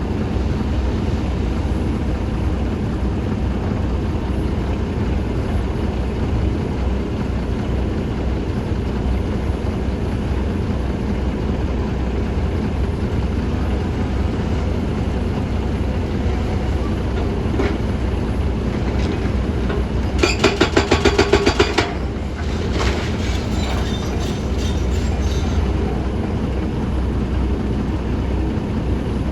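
Excavator's engine running steadily with a low rumble, with a short, fast, even rattle about two-thirds of the way through and some looser clatter after it.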